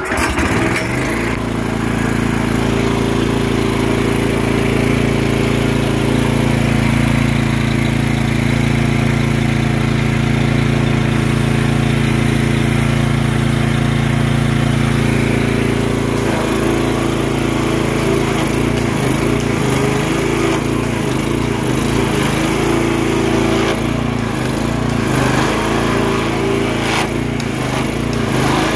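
Gas engine of a 4000 PSI pressure washer starting and running steadily. About halfway through, with the trigger pulled, its note turns uneven and the pump rattles: cavitation, the pump not getting enough water, with the pressure dropping.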